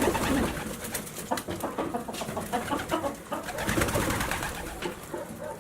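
Racing pigeons cooing, their calls overlapping without a break.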